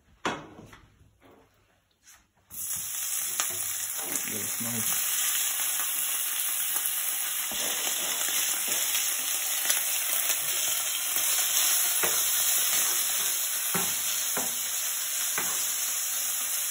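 Diced bacon dropped into hot oil in a nonstick frying pan starts to sizzle suddenly about two and a half seconds in, then sizzles steadily while it is stirred with a metal spatula, with occasional light clicks of the spatula on the pan.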